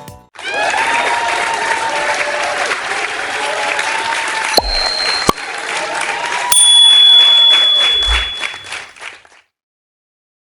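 A crowd applauding with some cheering voices, with two brief high steady tones partway through; it fades out and stops about nine seconds in.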